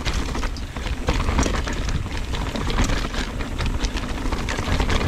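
Mountain bike riding down a rocky, chunky trail: a quick, irregular run of clicks and rattles from the bike over the rocks, over a steady low rumble.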